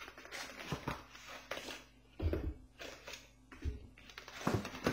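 Paper leaflets and cardboard packaging being handled and rustled, with irregular short rustles and a few dull knocks about two, three and a half, and four and a half seconds in.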